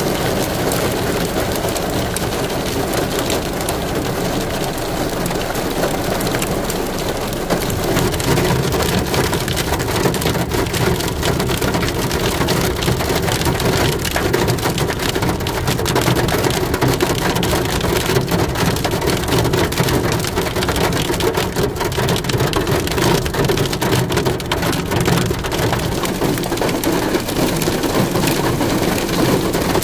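Heavy, steady rain falling, with many individual drops striking close by, over a low steady rumble.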